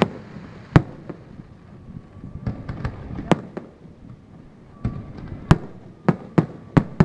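Aerial fireworks shells bursting overhead: a run of about a dozen sharp bangs at uneven intervals, some close together in quick clusters, with a low rumble between them.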